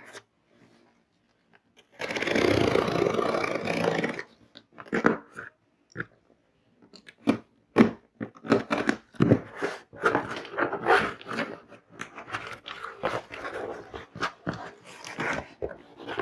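Cardboard shipping box being pulled open: about two seconds in, a couple of seconds of ripping, then a long run of irregular crackles and rustles as the packaging is handled.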